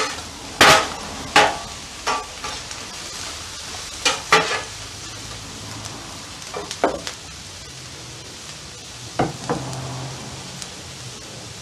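Onions and red and green peppers sizzling on a hot flat-top griddle, with metal spatulas scraping and clacking against the griddle plate every second or two, more sparsely after the first few seconds.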